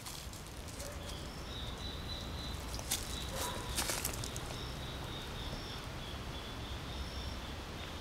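Insect buzzing steadily at a high pitch, a second higher tone coming and going, over a low outdoor rumble, with a few brief clicks about three to four seconds in.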